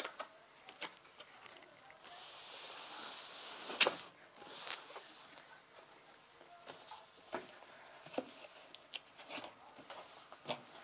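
Cardboard outer sleeve sliding off a foam drone case: a scraping rustle for a couple of seconds, then a sharp knock about four seconds in, and scattered light taps and knocks as the packaging is handled.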